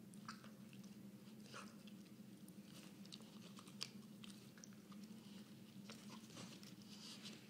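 Faint chewing and mouthing of a rope toy by a young dog: scattered soft clicks and rustles of teeth on the rope, over a steady low hum.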